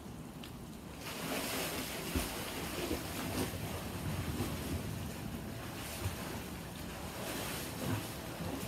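Swimmers kicking and splashing through pool water: a steady rushing splash that starts suddenly about a second in, with a few dull thumps.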